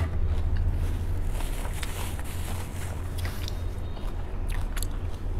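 A person chewing a mouthful of crisp lettuce salad, with scattered soft crunches, over a steady low hum.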